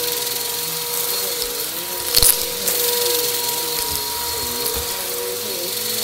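Bissell Helix Turbo upright vacuum running on carpet with a steady motor whine and airflow hiss, its pitch wavering as it is pushed back and forth. About two seconds in there is a short loud crackle as bits of debris are sucked up.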